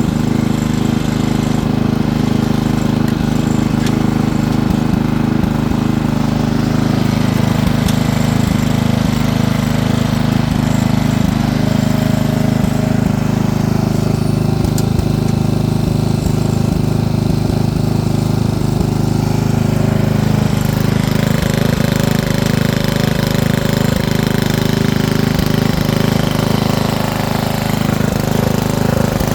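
Small off-road vehicle's motor running steadily under way, with a fast rattling drone.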